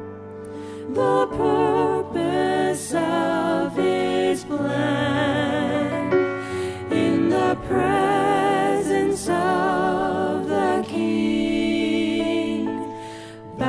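Gospel hymn sung by a family vocal group in harmony over accompaniment, the voices drawn out with vibrato. The music dips quieter just after the start and again near the end.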